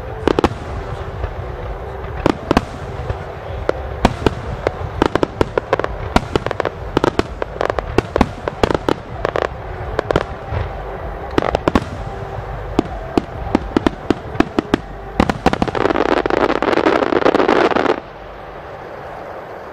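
Aerial firework shells bursting in quick succession, many sharp bangs and crackles overlapping. Near the end comes a dense, loud stretch of crackling that stops suddenly.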